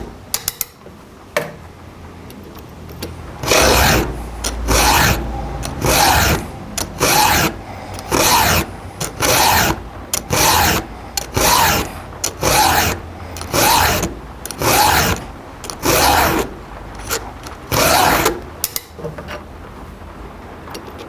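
A chainsaw file is pushed by hand across a chain's cutter tooth to sharpen it: a steady run of rasping strokes, about one every three-quarters of a second. The strokes start a few seconds in and stop shortly before the end, with a few light clicks at the start.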